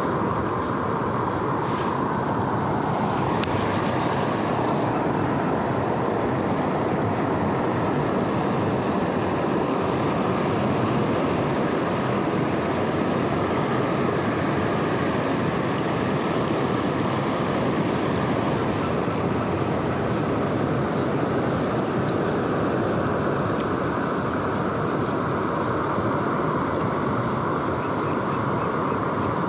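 Steady rush of stream water flowing over rocks, continuous and even at a fairly loud level.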